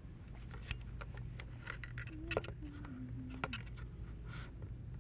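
Indoor shop ambience with a steady low hum, broken by many small clicks and light rattles from a handheld camera being carried and handled. About halfway through a faint low tone steps down in pitch for about a second.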